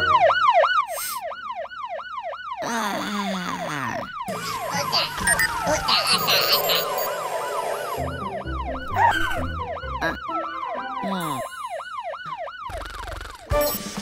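Cartoon fire-truck siren sounding in quick repeating yelps, each a short swoop of pitch, about three or four a second, in two runs with jingly music and effects between them. It is the truck's roof siren working as it is tested after repair.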